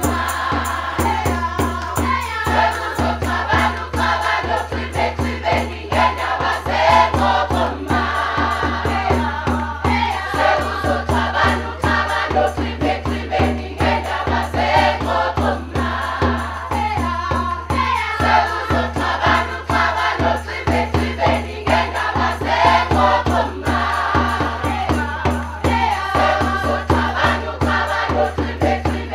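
A mixed choir of young women and men singing together, with a steady rhythmic beat under the voices.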